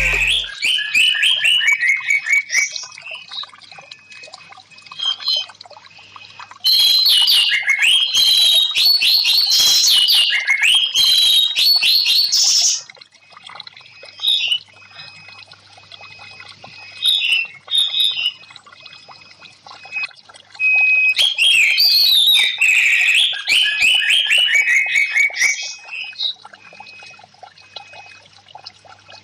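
Orange-headed thrush singing in long, rapid, varied warbling phrases. There are three main bouts of song, the loudest from about 7 to 13 seconds in, with short calls between them.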